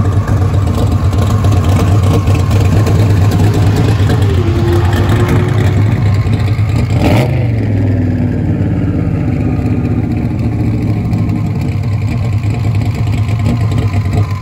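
Twin-turbo forged 6.1-litre Hemi V8 of a 2004 Dodge Ram Rumble Bee pickup running with a steady deep rumble. A brief sharp sound stands out about halfway through.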